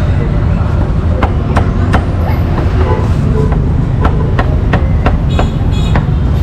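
A meat cleaver chopping braised pork on a thick wooden chopping block: sharp knocks in quick runs of about three a second. A steady low rumble runs underneath.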